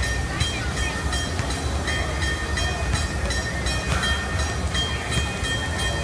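Narrow-gauge steam locomotive pulling its passenger train slowly, with even exhaust chuffs about four a second over a low rumble, and a steady high whine.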